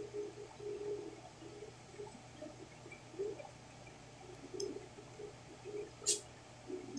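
Quiet handling of a small brass gas-stove valve part as a thin wire is worked through its gas hole, with one sharp click about six seconds in and faint, irregular low sounds in the background.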